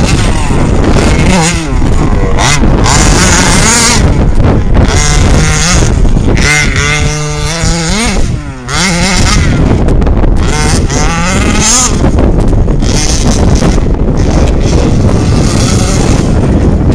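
Small two-stroke petrol engine of an FG radio-controlled buggy, revving up and down repeatedly as it is driven around a dirt track, with a brief drop in revs about eight and a half seconds in. Heavy wind noise on the microphone runs underneath.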